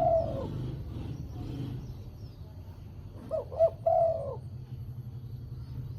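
Spotted dove (terkukur) cooing: the end of one phrase right at the start, then a full phrase about three seconds in, with two quick looping notes followed by a longer drawn-out coo. A steady low hum runs underneath.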